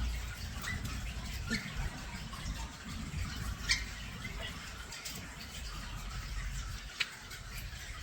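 European starlings giving short, scattered chirps, with a sharp click near the end, over a low steady rumble.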